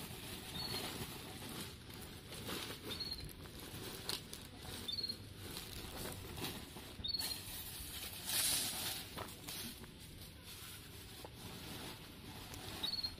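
Dry banana leaves and woven plastic sacks rustling and crackling as they are handled and stuffed, with a louder crinkle about two-thirds of the way through. A faint short high chirp sounds a few times in the background.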